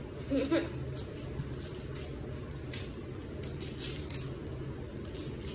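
Plastic candy wrapper crinkling and tearing as it is pulled open, in scattered short crackles.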